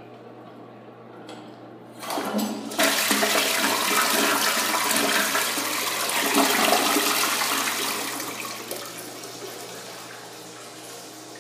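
Crane Plumbing Galaxy tank toilet flushing. The water rush starts about two seconds in, runs loud for about five seconds, then dies down to a quieter, steady hiss of water as the tank refills.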